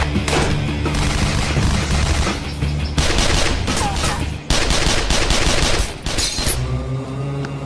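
A gunfight: rapid, overlapping shots from several handguns over dramatic background music, with a short break about four and a half seconds in. The shooting stops about six and a half seconds in, leaving the music.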